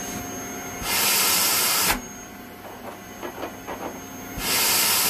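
Shop vacuum running through a home-made cyclone dust separator on a plastic drum, with two loud rushes of air hissing in, each about a second long, one about a second in and one near the end, as the suction at the inlet is blocked and released.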